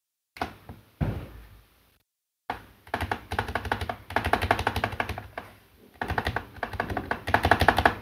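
Repeated presses of a 2U Backspace key on a mechanical keyboard with KTT Kang White V3 linear switches, testing its stabilizer for rattle: two single clacks first, then after a short pause a fast run of rapid clacks. The stabilizer is judged fine.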